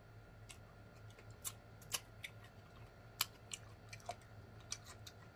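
A man chewing a mouthful of fried food with his mouth closed: faint, irregularly spaced crunches and mouth clicks, the sharpest about two and three seconds in.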